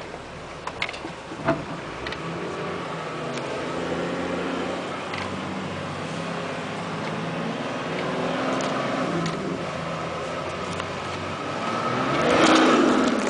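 Nissan Patrol GR Y60's 2.8-litre turbodiesel straight-six running as the 4x4 drives a rough track, heard from inside the cabin. A few sharp knocks and rattles come in the first two seconds, and the sound grows louder near the end.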